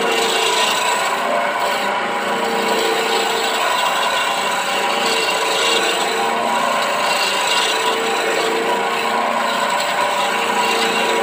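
A hand-held turning chisel cutting a spinning teak table-leg blank on a wood lathe: a steady scraping hiss of wood being shaved, over the lathe running.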